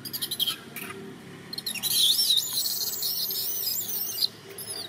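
Baby long-tailed macaque screaming for milk while its mother refuses to let it nurse: a loud, high, wavering cry of about two and a half seconds starting a second and a half in, after a few short sharp sounds, with a shorter cry near the end.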